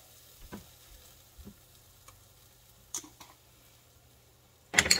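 Rice and garlic sizzling faintly as they toast in an Instant Pot on the sauté setting. A few light clicks come from a spice jar being handled, and there is a louder sharp clack near the end.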